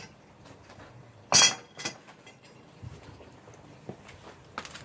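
Steel foothold traps and chain clanking as they are set down: one sharp loud clank about a second and a half in, followed by a few lighter clinks.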